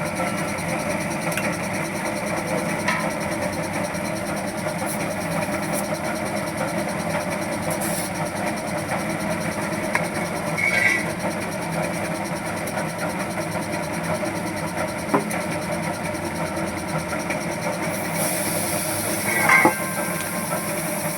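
A steady mechanical hum from a running machine, with a few faint clicks and two short, sharper sounds, one about halfway through and one near the end.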